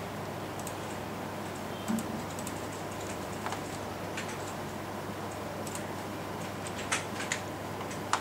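About half a dozen sharp, spread-out clicks of a computer keyboard being used, over a steady background hiss.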